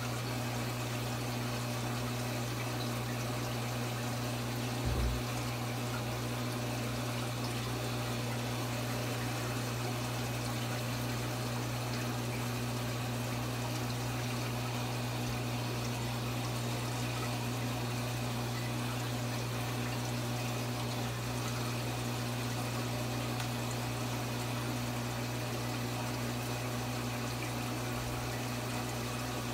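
Aquarium sump pump humming steadily under the rush of water flowing through the filter compartment. There is one short low thump about five seconds in.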